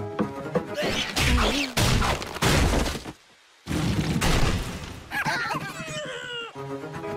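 Cartoon slapstick crash sound effects: a run of loud crashing and smashing, a sudden brief drop to near silence, another crash, then sliding squeals. Background music comes back near the end.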